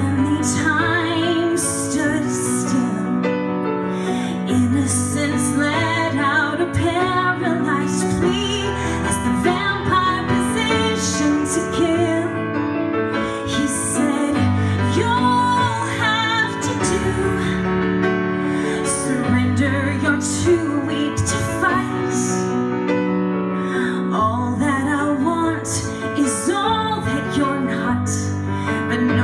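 A woman singing a song live with long held notes, over a sustained instrumental accompaniment.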